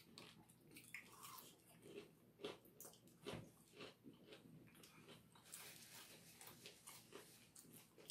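Faint chewing: a mouthful of fried food being chewed, with small wet clicks and smacks scattered through it.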